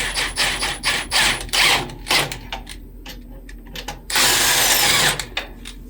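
Impact wrench snugging a nut on a trailer U-bolt: a run of irregular clicks and short rattles, then one loud burst of hammering lasting about a second near the end.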